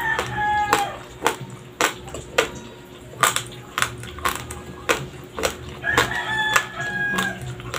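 Close-up crunching of raw, uncooked white Dinurado rice grains being chewed, sharp crunches about twice a second. A rooster crows twice in the background, once at the very start and again about six seconds in.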